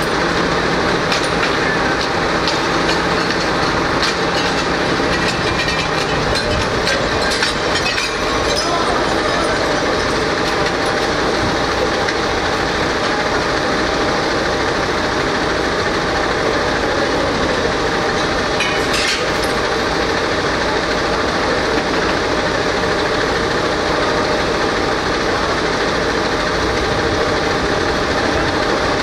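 Fire truck engine running steadily, powering the aerial ladder. Several sharp clinks and knocks come in the first eight seconds or so, with one more about 19 seconds in, as a firefighter works at an upper-floor window with a hand tool.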